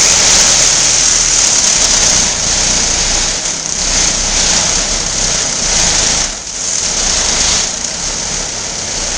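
Power saw cutting through a shed: a loud, steady, hissing machine noise that dips briefly twice, about six and a half and seven and a half seconds in.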